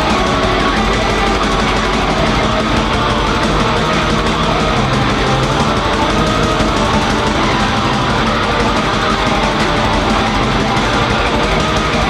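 Raw black metal music: a loud, dense wall of distorted guitars over fast drumming, with no break in the sound.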